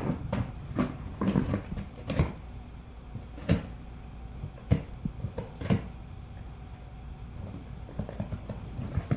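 Golden retriever biting, clawing and tearing at a cardboard box: irregular crunches, scrapes and knocks of cardboard, thick in the first couple of seconds, then a few single sharp knocks about a second apart and a quieter stretch.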